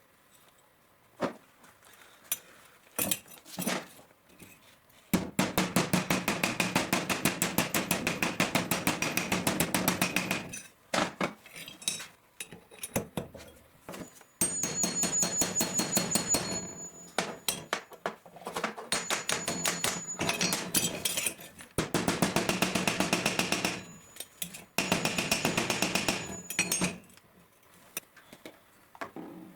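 Rapid, evenly spaced light hammer taps on metal in bursts of a few seconds, with scattered single knocks in between.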